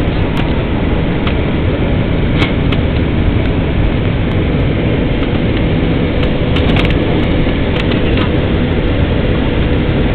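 Steady noise of an Airbus A321-100's jet engines and rushing airflow heard inside the passenger cabin on landing approach, with a faint steady hum and a few brief clicks.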